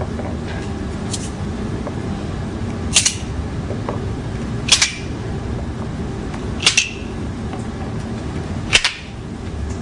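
Montessori sound cylinders shaken one at a time: four short, sharp rattles about two seconds apart, over a steady low hum.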